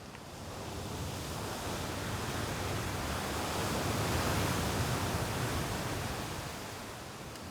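Wind and surf on a beach: a rush of noise that swells to a peak about four seconds in and then eases off.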